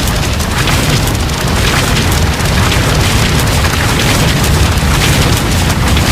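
Logo sound effect: a continuous deep rumble with dense crackling on top, steady and loud.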